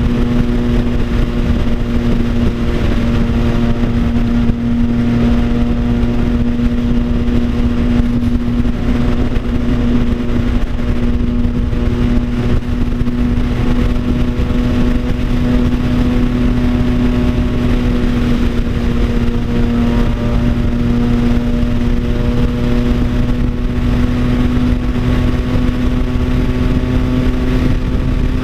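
Triumph Tiger Sport 660's inline three-cylinder engine blaring through an Orion Toni aftermarket exhaust at a steady highway cruise: a very loud, even drone that holds nearly the same pitch throughout.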